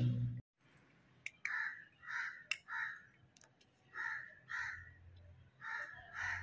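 Crow cawing: about seven short calls, mostly in pairs, with a few sharp clicks between them. A louder low-pitched sound cuts off about half a second in.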